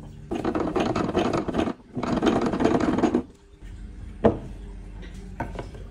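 Two rough scraping bursts against wood, each a little over a second long, with a short gap between them, followed by a single sharp knock about four seconds in and a couple of lighter clicks near the end.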